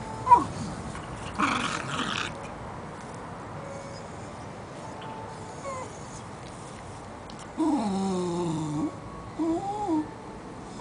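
Dogs at play: a sharp yip just after the start and a short rough growl, then near the end a longer call falling in pitch followed by two short rising-and-falling calls.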